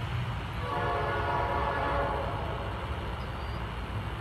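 Diesel locomotive air horn on NS 9719, a GE C44-9W, giving one steady chord of about a second and a half, as a train sounds for a grade crossing. A steady low rumble runs underneath.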